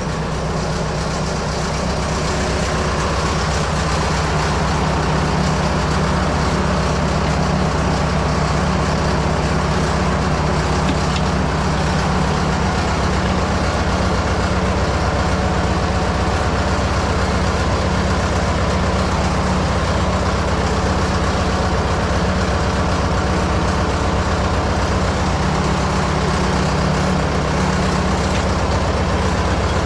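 Fordson Major tractor engine running steadily at idle, its speed unchanged throughout.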